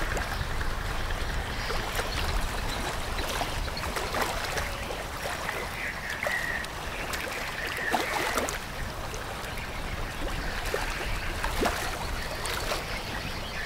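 Open-water sounds: river water splashing and lapping over a steady low rumble, with scattered light clicks and a brief high chirp about six seconds in.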